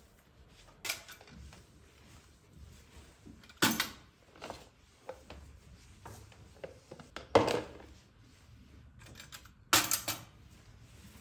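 A handful of sharp knocks and clatters from objects being handled, spaced a few seconds apart, with the loudest about two-thirds of the way through and a quick pair near the end.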